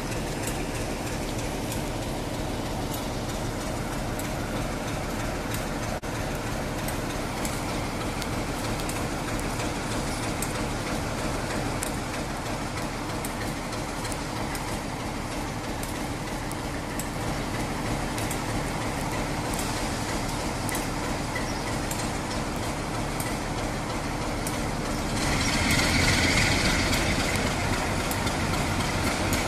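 Class 47 diesel locomotive's Sulzer twin-bank V12 engine idling steadily while the locomotive stands at the platform. About 25 seconds in, a louder hiss swells up over it.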